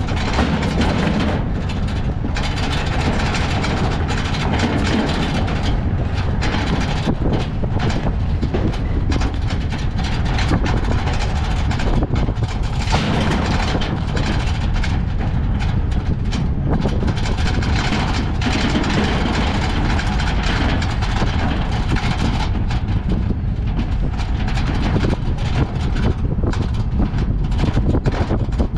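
Wooden race carts rolling fast on a paved road: a continuous loud rumble of the wheels with fine clattering and rattling.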